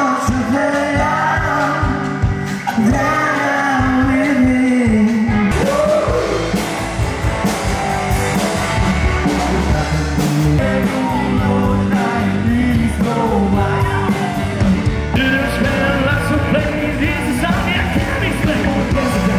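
Loud rock music: a male singer singing and shouting over drums, bass and electric guitars, with abrupt changes about five seconds in and again about fifteen seconds in.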